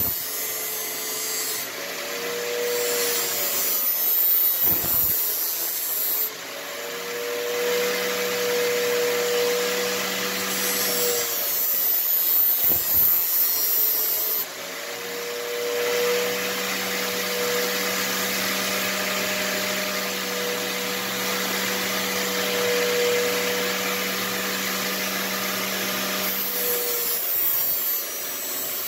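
Angle grinder clamped in a vise, running steadily with a whine while a steel knife blade is ground against its spinning disc. The sound breaks off briefly a couple of times.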